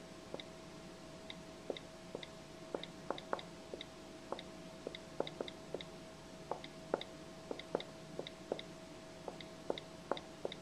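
Capacitive stylus tip tapping keys on an iPad's glass on-screen keyboard, an irregular string of light taps about two a second, many of them paired with the iPad's short keyboard click, over a faint steady hum.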